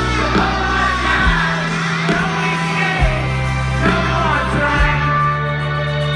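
Rock band playing live with a lead singer, recorded from the audience: a sung melody over a bass line whose low notes change every second or two, each change marked by a drum hit.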